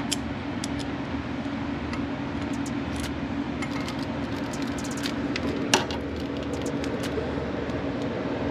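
Scattered light metallic clicks and clinks of brake-line hardware and hand tools being handled, one sharper clink a little past halfway, over a steady background hum.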